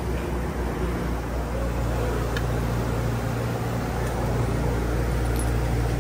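A steady low machine hum with an even hiss over it, unchanging throughout.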